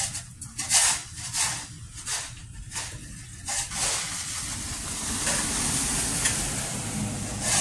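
A shovel scraping ice and snow off a sidewalk in about half a dozen quick strokes. About four seconds in this gives way to the steady hiss of car tyres on a snowy, icy road, growing louder near the end as a car passes.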